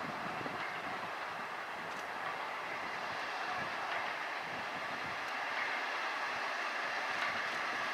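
Steam locomotive working a train at a distance: a steady rush of exhaust and wheels on the rails, slowly growing louder.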